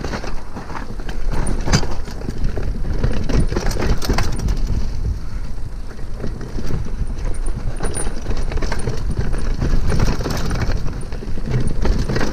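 Mountain bike riding fast down a dirt forest trail: tyres on dirt and roots and the bike rattling over the bumps, a dense run of small knocks over a steady low rumble.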